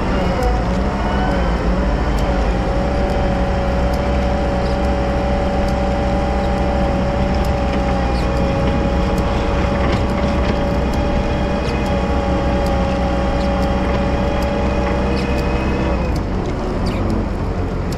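Wheel loader's diesel engine running steadily under load, with a steady whine over a low rumble and scattered light clicks; the engine note drops about two seconds before the end.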